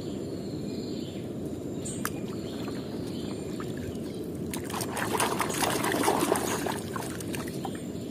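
Water splashing and trickling in a plastic tub as a small die-cast toy car is dipped and moved in it, busiest about five to seven seconds in, over a steady low background rush.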